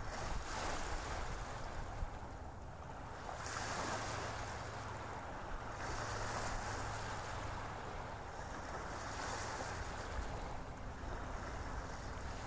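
A tomato and onion mixture sizzling in oil in a stainless steel pot as a wooden spoon stirs it, the hiss swelling and easing every couple of seconds.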